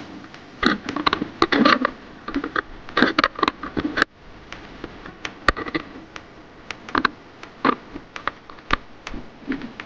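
Irregular rustling, scraping and clicking handling noise close to a body-worn camera as hands and clothing work a fishing reel and line.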